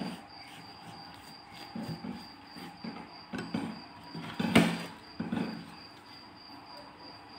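Filo sheets being brushed with ghee and handled on a metal tray: a series of soft pats and rustles, with one sharper knock about four and a half seconds in.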